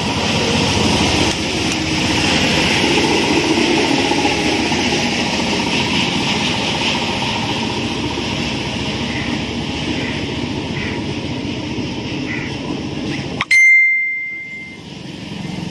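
Steady mechanical workshop noise with passing-vehicle sound, then near the end a single loud metallic ding that rings at one high pitch for about a second.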